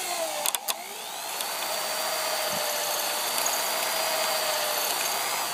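Power drill with a 3/16-inch bit boring out a deadbolt's pin cylinder. The motor whine dips, two sharp clicks come about half a second in, then it spins back up and runs at a steady high pitch, starting to wind down right at the end.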